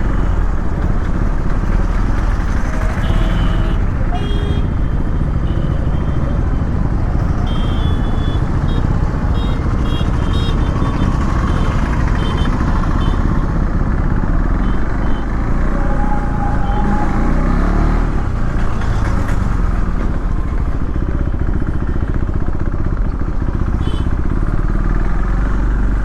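Motorcycle running on the road while being ridden, with heavy wind rumble on the microphone and a few short high beeps, like distant horns, here and there.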